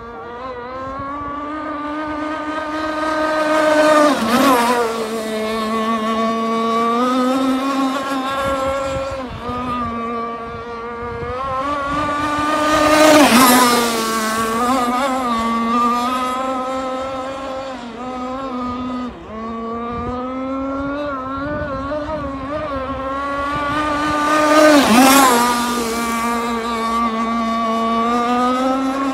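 Twin RCMK 26cc two-stroke engines of a 52cc radio-controlled powerboat running at high revs with a steady high buzz. The boat passes close three times, about four, thirteen and twenty-five seconds in; each pass is louder, with a rush of noise and the engine pitch dropping as it goes by.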